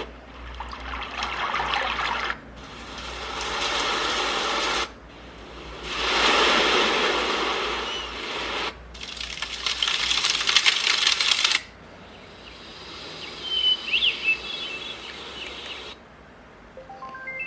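Malanghani baby white noise machine playing its built-in sounds and switching abruptly every few seconds between hissing, rushing noise tracks. The last track is quieter, with a few short chirping whistles.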